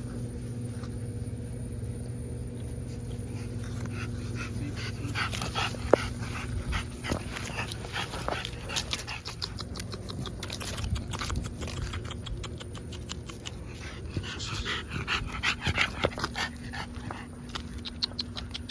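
Exotic bully puppies making dog sounds: runs of short, quick noises starting about four seconds in, over a steady low hum.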